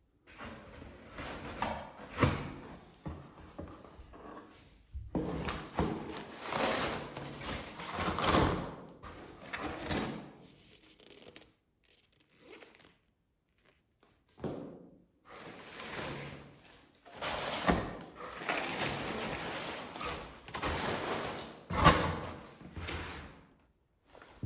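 Products and their packaging being handled during an unboxing: bursts of rustling and scraping with a few sharp knocks as things are set down, broken by short silences.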